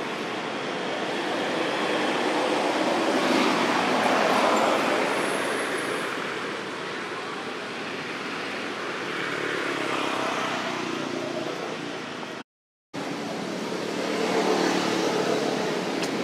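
Broad outdoor rushing noise with no clear tones. It swells and fades twice and drops out briefly about twelve seconds in.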